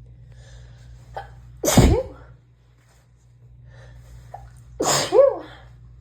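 A woman sneezing twice, about three seconds apart, each sneeze led by a short sharp intake of breath: an allergy sneezing fit. A steady low hum runs underneath.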